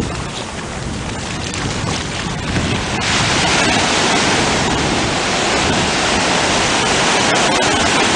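Ocean surf washing over the shallows, a steady rushing noise that gets louder about three seconds in and stays up.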